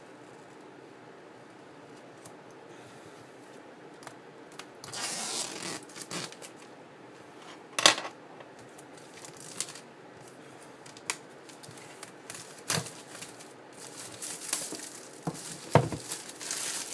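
Clear plastic shrink-wrap on an iPad box being slit with a hobby knife and peeled off: crinkling and tearing rustles with several sharp clicks, the loudest about eight seconds in. The first few seconds are faint.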